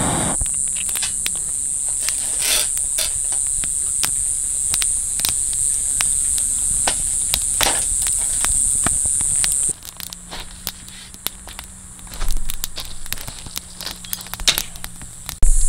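Split kindling crackling and popping as it catches and burns in a fire pit, many sharp snaps scattered throughout. Insects chirp steadily high over it for the first two-thirds, then drop out suddenly and return near the end, leaving the crackling alone in between.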